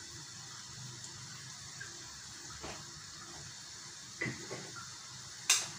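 Tomato-and-onion gravy frying in a pan, a steady faint sizzle. There are two light clicks partway through and a sharp click near the end, the loudest sound.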